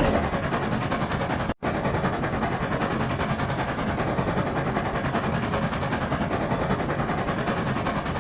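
Steam locomotive running sound effect: a steady, rapid, even chuffing. It cuts out completely for a split second about a second and a half in, then carries on.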